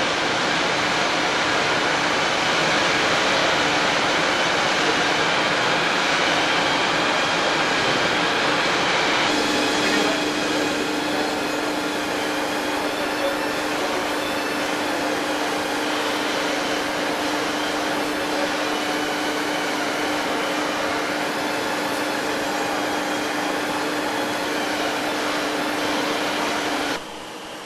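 Steady machinery noise in a heavy engineering machine shop: a continuous mechanical rush, with a steady hum joining about a third of the way through. It drops off abruptly near the end.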